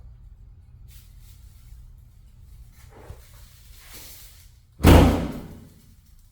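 A car door slams shut once near the end, a single heavy thud that fades over about a second, over a low steady hum.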